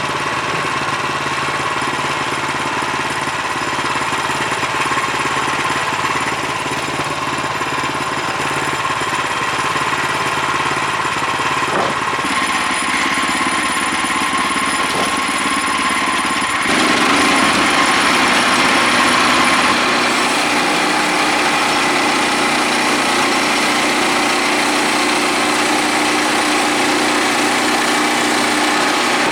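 Engine of a Woodland Mills HM126 portable bandsaw sawmill running steadily while the band blade cuts through a cottonwood log. Partway through, the sound steps up and gets louder and harsher.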